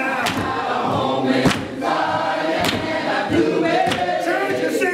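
Church congregation singing a gospel song together, with sharp beats about once a second.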